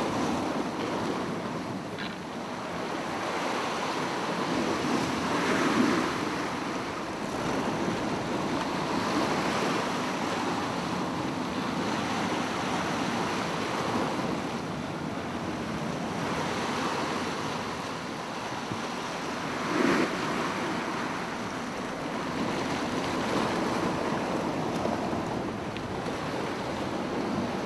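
Sea surf washing against rocks: a steady rush that swells louder about six seconds in and again near twenty seconds, with wind buffeting the microphone.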